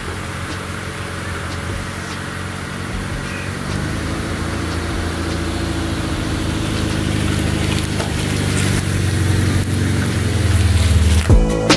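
Honda Civic's four-cylinder engine idling steadily, growing gradually louder.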